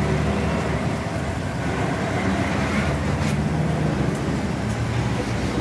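Steady low drone of running machinery under an even hiss, with a couple of light clicks about three and four seconds in.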